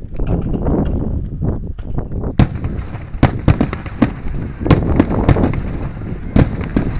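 Aerial fireworks going off: a loud bang about two and a half seconds in, then a rapid run of bangs and crackling reports, over a steady rumbling noise.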